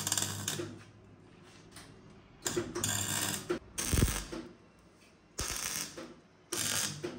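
Metal hand-tool work: several short bursts of rapid ratchet-like clicking, with a sharp knock about four seconds in.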